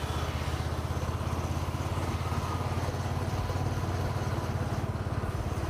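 Motorcycle engine running steadily under way, with a fast, even pulse.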